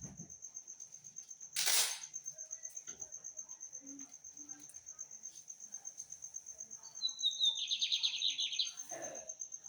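A cricket trills steadily in a fast pulsing high note. Near the end a small songbird sings one short, rapid phrase lasting about a second and a half. A brief loud rustle or knock comes about two seconds in.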